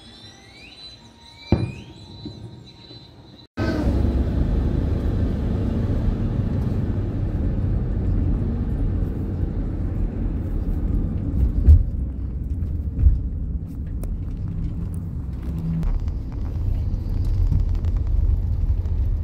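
Faint high chirping, then, about three and a half seconds in, a sudden switch to the loud low rumble of a vehicle driving on a highway, heard from inside the vehicle, with a couple of brief knocks partway through.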